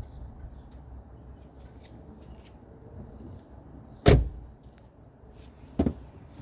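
Low vehicle rumble with two sharp clunks, a loud one about four seconds in and a lighter one under two seconds later: the unexplained knock in a 2019 Ford Edge ST.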